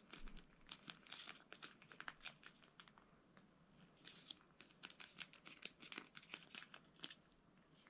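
A small foil-lined MRE food packet being torn open and handled: faint crinkling and tearing of the foil laminate in many short crackles.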